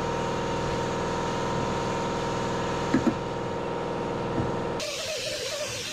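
Shop air compressor running steadily, building tank pressure to feed the air grinder, with two light knocks about three seconds in. Near the end it cuts off abruptly and music comes in.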